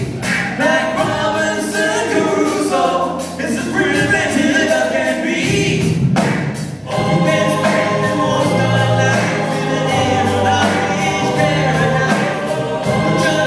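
Live band performance with a sung lead vocal over choir-like, gospel-style backing vocals, a bass line and a steady beat.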